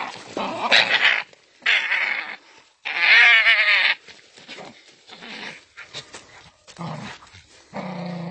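Dogs attacking another animal: three bursts of loud, wavering, high-pitched animal cries in the first four seconds, then low growling near the end.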